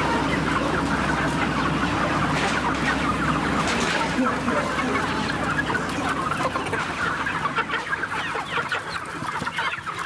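A crowded flock of broiler chickens clucking continuously, many short calls overlapping into a dense chatter.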